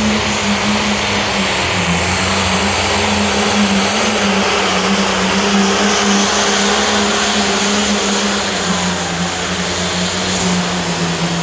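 Heavy pro pulling tractor's diesel engine running loud and steady at high revs under load as it pulls the sled, its pitch sagging slightly near the end.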